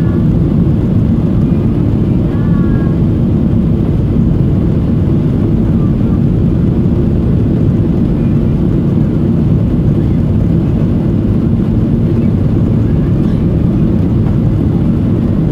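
Steady drone of a Boeing 737-800's CFM56-7B turbofan engines and rushing airflow, heard inside the cabin during the climb-out after takeoff.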